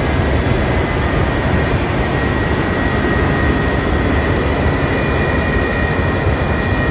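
Heavy farm machinery, most likely a combine harvester, running steadily with a deep rumble and a constant high whine.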